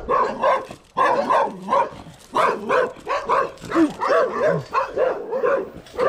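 Dogs barking at a passing stranger, a rapid run of barks at about three a second.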